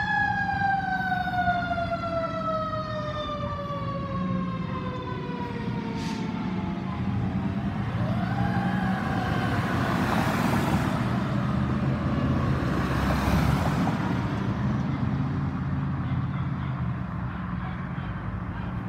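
Fire engine's siren winding down, its pitch falling steadily for about seven seconds. Then passing cars swell and fade, over a steady low traffic rumble.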